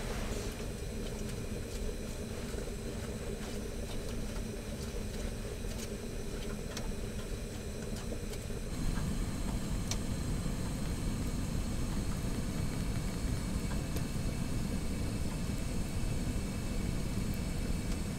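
Cassette gas stove burning steadily under a pot of water and vegetables, a steady rushing hum with occasional faint ticks as the pot heats. About nine seconds in, the hum drops out and a fuller, slightly louder low rush takes over.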